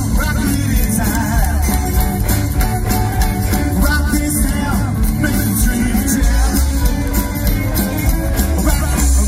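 Live rockabilly band playing: upright double bass, electric and acoustic guitars and drums.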